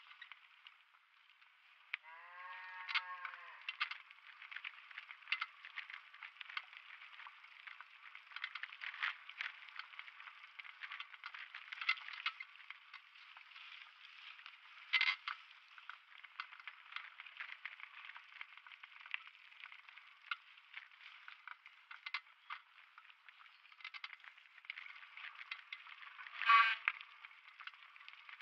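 Mountain bike rattling and clattering over a rough, rocky dirt trail at downhill speed: a dense, irregular stream of clicks and knocks with a few louder bangs. About two seconds in, a short bleating call rises and falls, and near the end there is a brief louder pitched burst.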